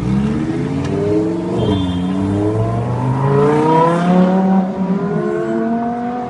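Lamborghini Huracán's V10 engine accelerating, its pitch climbing, dipping briefly about two seconds in, then climbing again before levelling off near the end.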